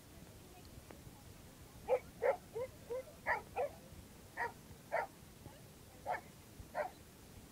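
Dogs barking in a run of about ten short barks and yips, starting about two seconds in and coming every half second or so, during rough play among a pack of dogs.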